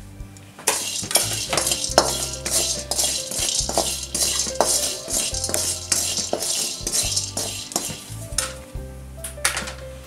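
Metal spatula stirring and scraping chironji seeds as they roast in a metal kadai, a dense scratchy rattle that eases off near the end, over background music with a steady bass line.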